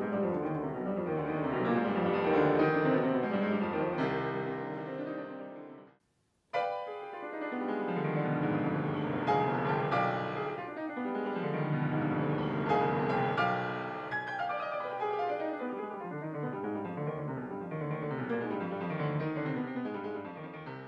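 Solo classical piano played in fast runs on a Yamaha grand piano. About six seconds in the sound cuts out for half a second and resumes on another grand piano, which fades out near the end.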